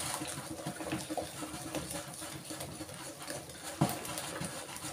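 Wire whisk beating a thick cake batter in a glass bowl: rapid, uneven scraping and clicking strokes, with one louder knock of the whisk against the bowl near the end.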